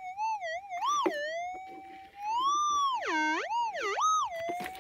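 Minelab GPZ 7000 gold detector's target tone swooping up and down in pitch as the coil passes back and forth over a target, with a long high swell about halfway through and a steadier hum between swells. It is a strong response, typical of a shallow target, which here turned out to be a gold-bearing ironstone specimen just under the surface.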